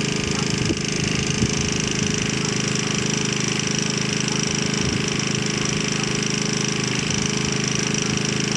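A small engine running steadily: a continuous hum with a high hiss above it.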